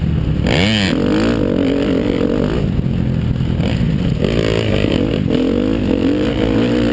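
2013 KTM 250 SX-F's four-stroke single-cylinder engine under way on a dirt track, heard close from a camera on the bike. The revs dip and climb sharply about half a second in, hold fairly steady, then climb again around four seconds in.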